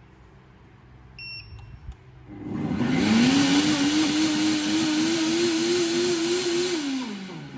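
Tefal Perfectmix Cook BL83SD66 blender running its smoothie program on water. A short electronic beep sounds as the program starts, then about two seconds in the motor spins up to a steady, noisy high-speed whine with the water churning. It runs for about four seconds and winds down near the end. The noise is normal for such a high-power machine.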